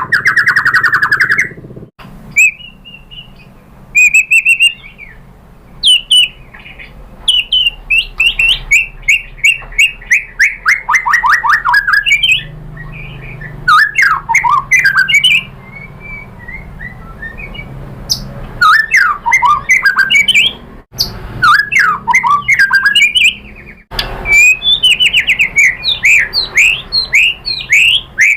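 White-rumped shama in full song: loud, varied phrases of rapid repeated notes, falling note series and harsh squawky notes, sung in bursts with short gaps between them.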